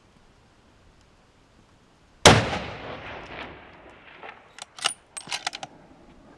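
A single hunting rifle shot, a missed shot at a desert bighorn ram, about two seconds in, its report echoing and dying away over about two seconds. It is followed by a quick run of sharp clicks and clacks.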